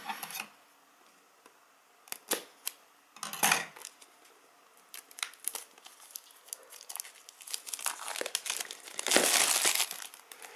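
Clear plastic shrink wrap being picked at and pulled off a small cardboard box: scattered crinkles and clicks, then a loud stretch of continuous crinkling and tearing near the end.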